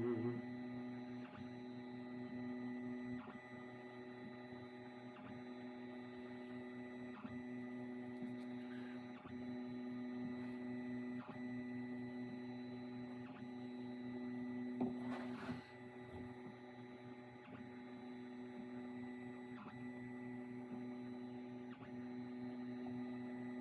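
A steady electrical hum, with faint ticks about every two seconds and a brief rustle of handling about fifteen seconds in.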